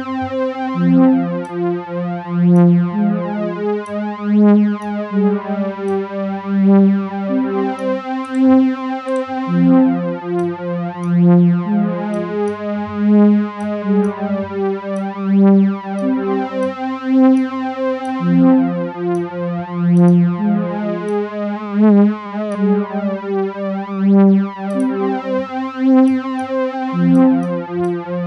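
FM8 software synthesizer playing an ambient pad in a slow succession of sustained overlapping notes and chords. Its modulator operators' vibrato rate is driven by a pitch envelope, giving an uneven pitch wobble that is most plain about three quarters of the way through.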